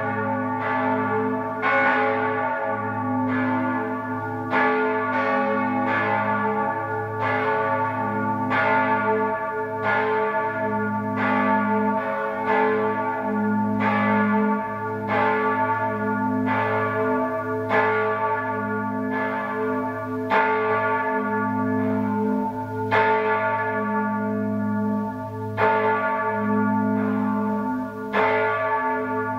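Five church bells of the Archabbey of St. Ottilien (bells 2, 4, 5, 6 and 8, tuned a°, c♯', e', f♯', a') ringing together in a full peal. Their strikes overlap in an irregular sequence, about one a second, over a steady low hum.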